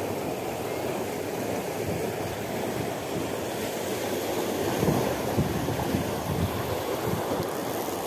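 Steady rush of water pouring through a concrete weir gate and churning in the channel below. A few louder low buffets of wind on the microphone come about five to six seconds in.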